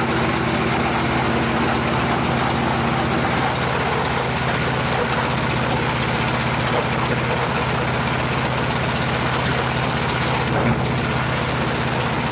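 Fairey Swordfish's Bristol Pegasus nine-cylinder radial engine running steadily, freshly restored, on its first engine run.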